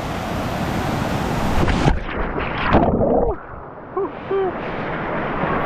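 Steady rush of a waterfall, then a person slipping on a wet rock and splashing into the pool about two seconds in. The sound turns muffled from that moment on.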